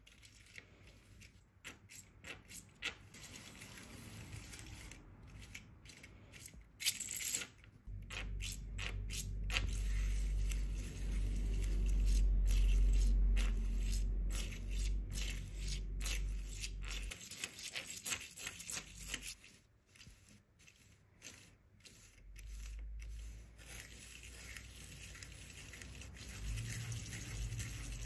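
3D-printed plastic nested-hexagon fidget toy being pushed and flexed by hand on a cork desk pad: its stacked rings click and rattle against each other in quick irregular ticks. A deep low rumble comes in about a third of the way through for several seconds, and again near the end.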